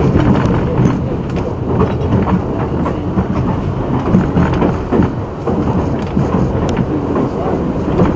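Subway train running on its rails, a steady rumble with the wheels clicking over rail joints.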